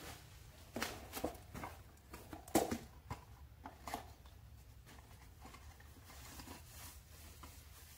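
Rustling and crinkling of foam and plastic packaging and cardboard as a wrapped part is pulled out of a box, with a few louder rustles in the first four seconds.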